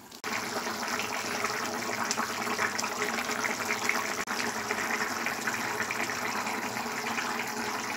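Thin ridge gourd and potato curry bubbling at a simmer in a kadai: a steady watery bubbling full of fine crackles, starting abruptly just after the start.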